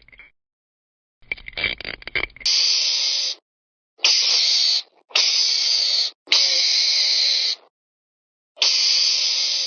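Five hisses, each about a second long and starting and stopping abruptly, after a brief crackling rustle.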